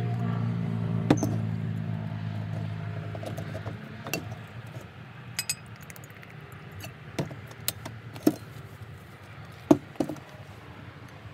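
Sharp clinks and clicks of a drinking glass, spoon and plastic sauce-bottle caps as sauces are poured and mixed, about nine scattered ticks with the loudest about a second in and near the end. Under them a low steady hum fades away over the first four seconds.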